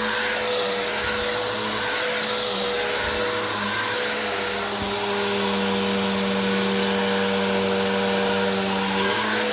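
Bissell vacuum cleaner running steadily at full suction, its motor hum shifting slightly in pitch a few times.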